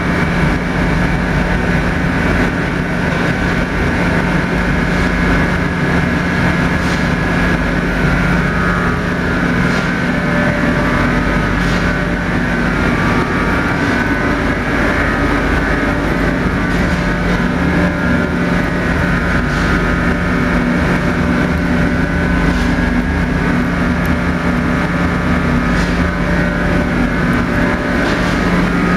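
Wood pellet biomass burner running, with a steady mechanical hum and several high whining tones, like a motor-driven fan.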